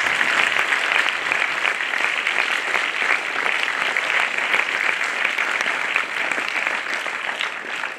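Audience applauding: a steady round of many people clapping that thins out near the end.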